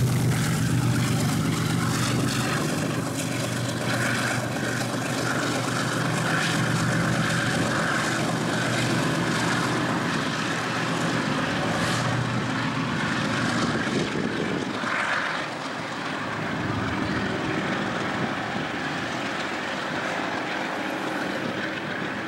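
Diesel locomotive engine running, with a steady low hum strongest at the start as the locomotive passes close by. Road traffic noise is mixed in.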